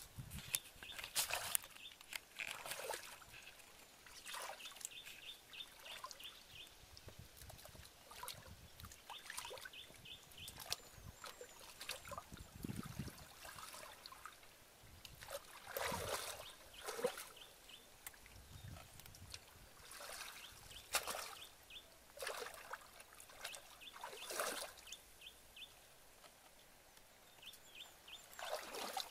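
Muddy shallow water sloshing and splashing irregularly as a person wades through it and gropes in it by hand for fish. Between the splashes a high chirping call repeats in short rapid runs.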